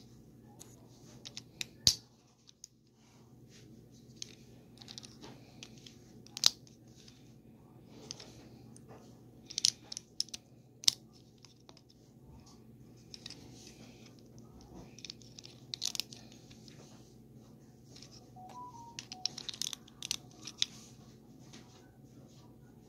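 Plastic LEGO bricks being handled and pressed together: scattered sharp clicks and short bursts of rustling, with a few louder snaps.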